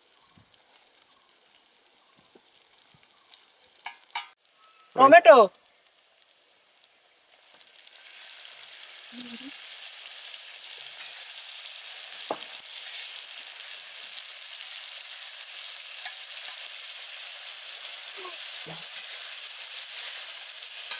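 Oil sizzling in a cooking pan. It comes in about a third of the way through and builds to a steady hiss, with a few faint knocks.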